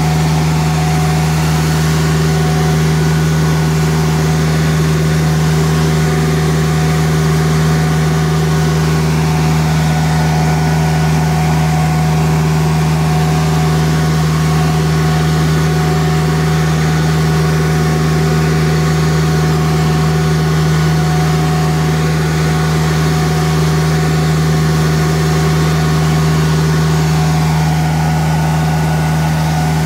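Nilfisk CR2250 ride-on sweeper-scrubber running steadily as it scrubs, with a constant, unchanging machine hum.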